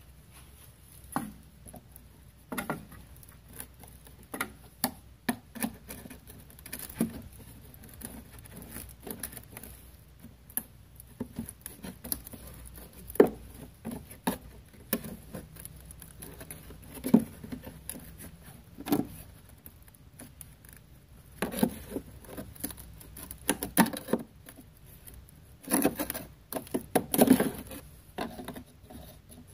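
A screwdriver prying and scraping at a car's rear wheel-well liner and its fasteners, heard as scattered sharp clicks, scrapes and knocks. The clicks come in denser runs in the last third.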